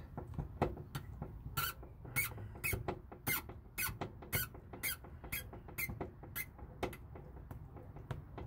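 Phillips screwdriver turning a screw out of a plastic door trim panel, the screw squeaking in short, sharp chirps about twice a second with each twist, weaker near the end.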